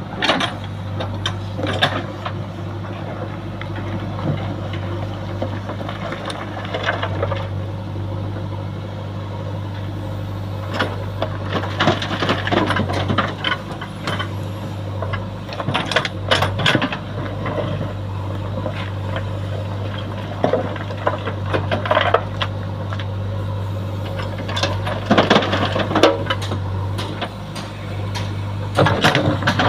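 JCB 3DX backhoe loader's diesel engine running steadily under work, with irregular metallic clanks and knocks from the digging gear, in clusters every few seconds.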